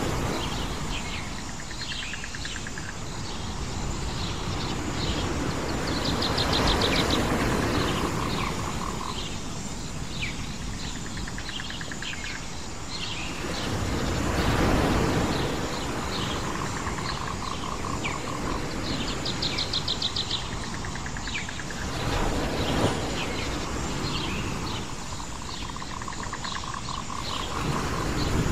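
Waves washing on a shore, swelling and easing about every eight seconds, with small birds chirping and trilling throughout.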